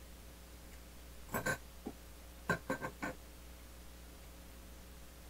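Quiet eating noises close to the microphone: a short smack about a second and a half in, then a quick run of four short clicks about a second later, over a faint steady hum.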